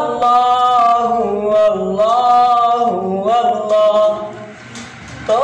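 A boy singing a Bengali Islamic song unaccompanied, holding long drawn-out notes that step slowly up and down. Near the end the voice drops away for a moment, then comes back in.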